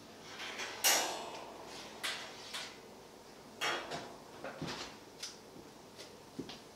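Oven door and rack clanking as a foil baking pan is taken out of the oven and the door shut: a sharp metallic clank with a short ring about a second in, then several lighter knocks and a dull thud.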